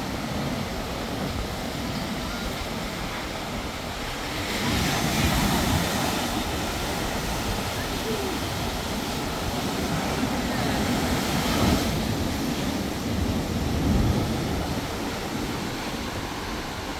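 Rough sea surf breaking and washing up a concrete slope, with a low rumble of wind on the microphone. The hiss of the breaking water swells about five seconds in and eases off again about twelve seconds in.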